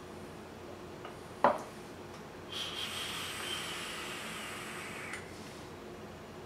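A sharp click about a second and a half in, then about two and a half seconds of steady hiss with a thin whistle: an e-cigarette being drawn on, air pulled through the atomizer while its coil fires and vaporizes the e-liquid.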